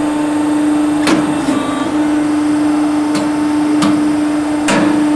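Ormac shoe lasting machine running with a steady hum, with four sharp mechanical clacks as its jaws and pincers work on the shoe.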